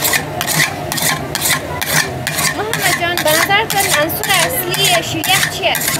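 A metal ice-cream pot turned by hand in a bed of crushed ice, with a spatula scraping the freezing milk off its inner wall in repeated strokes and ice crunching against the pot. The scraping keeps the sheer yakh from forming ice crystals. Voices join from about halfway through.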